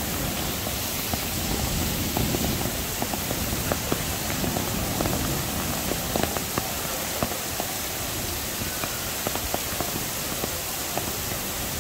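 Heavy summer rain falling steadily in a downpour, with many small, sharp splashes of drops striking hard surfaces.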